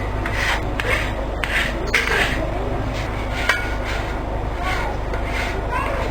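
A hand tool scraping wood in repeated short strokes, about two a second, like filing or rasping. There is one sharp tap about three and a half seconds in.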